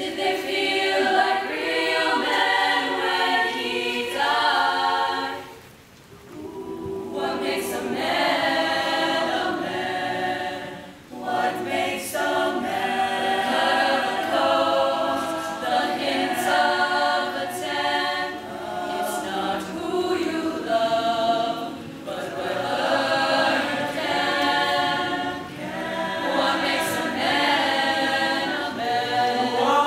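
Mixed choir of young men and women singing together in parts, with short breaks between phrases about 6 and 11 seconds in.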